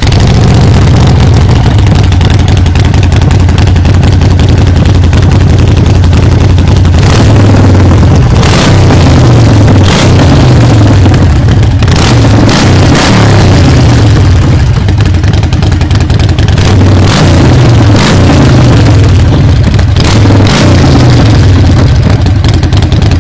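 Harley-Davidson Forty-Eight's air-cooled 1200 cc V-twin running through its short twin exhaust. It idles steadily for several seconds, then the throttle is blipped over and over, the revs rising and falling again and again.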